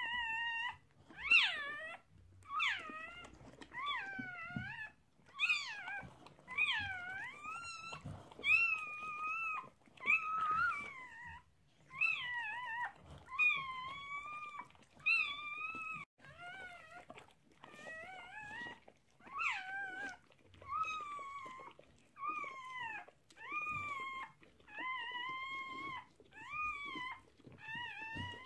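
A newborn American bulldog puppy crying in a long run of short, high-pitched cries, nearly one a second, each bending up and down in pitch.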